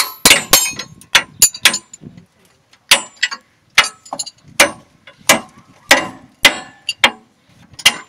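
Ratchet wrench and hand tools clicking and clanking on steel in sharp, irregular strokes, a few a second, as the U-bolts of a truck's new front leaf spring are tightened.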